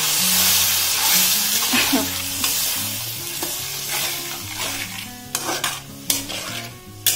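Tomato-and-spice masala sizzling in oil in an aluminium kadai, with water just added, while a steel spatula stirs it. The sizzle fades over the first three seconds. After that the spatula scrapes and knocks against the pan in several sharp strokes.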